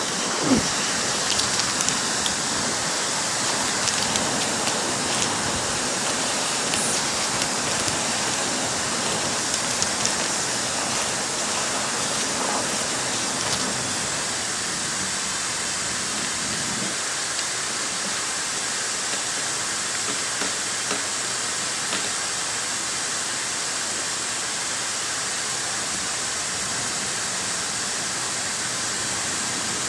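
Dyson hair dryer running steadily: an even rush of blown air with a thin high whine, and a few small knocks in the first half.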